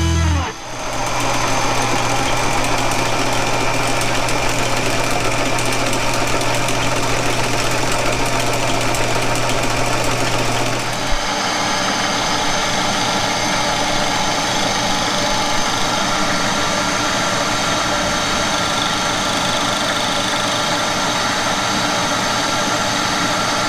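Milling machine running with a fly cutter taking a light facing cut across a weld-repaired cast aluminum face, a steady whirring machining noise. About eleven seconds in a steady low hum drops out and the sound thins, with a brief click.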